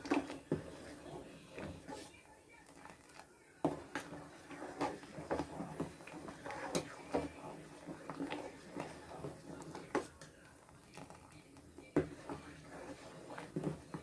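A metal spoon stirring rice and milk in a stainless steel pot, with irregular clinks and scrapes of the spoon against the pot, stirred so the rice does not stick to the bottom.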